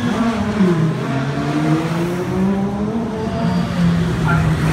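Sports car engines accelerating hard past. Just after the start one engine's pitch drops as it goes by, and over the next two seconds another engine's pitch rises as it revs up.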